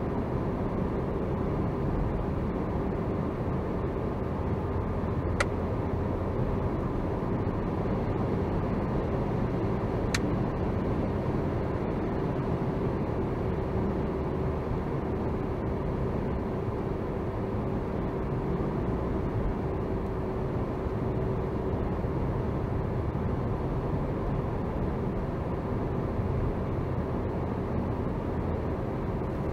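Car driving along, heard inside the cabin: steady road and engine noise with a constant low hum. Two brief sharp clicks stand out, about five seconds apart.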